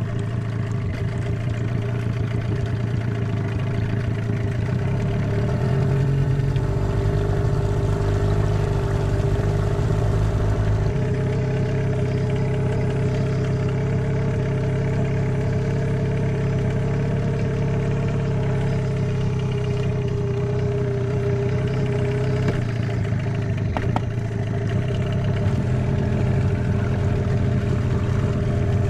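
Hidea 15 hp outboard motor running steadily, driving an inflatable boat along, with small shifts in its note a few seconds in.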